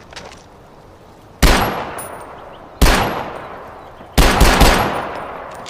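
Mauser M712 Schnellfeuer machine pistol firing: two single shots about a second and a half apart, then a short burst of about three rapid shots about four seconds in, each shot trailing off in a long echo. A couple of faint clicks come just before the first shot.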